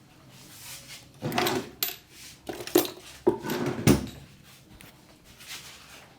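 A quick run of sharp slaps and knocks, about six in under three seconds starting about a second in, the last the loudest: hands striking during a massage.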